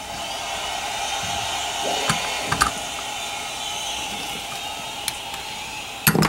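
A ratchet and 8 mm socket working a small bolt on a Honda CRF150RB carburetor: a few scattered metallic clicks, the loudest pair near the end, over a steady background hum.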